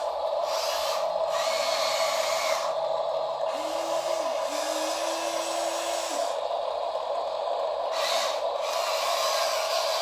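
Small electric gear motors of a Huina RC excavator whirring as the boom and bucket move, starting and stopping every second or so, with a short rising and held whine near the middle, over a steady hum.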